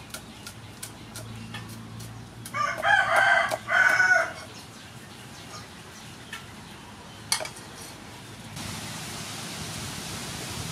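A cleaver chops green onions on a wooden board in steady knocks, about three a second. About two and a half seconds in, a rooster crows loudly in a call of two parts, and a single chop follows later. Near the end an even hiss sets in.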